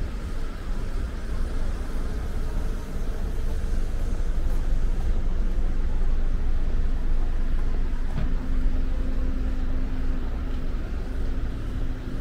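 City street ambience with a steady low traffic rumble. About two-thirds of the way in, a steady droning tone joins it.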